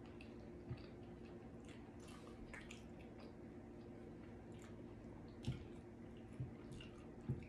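Faint wet, sticky squishes and small clicks as sauce-covered barbecue rib tips are picked apart with gloved fingers, over a steady low hum. A few soft knocks come through, the loudest about five and a half seconds in and near the end.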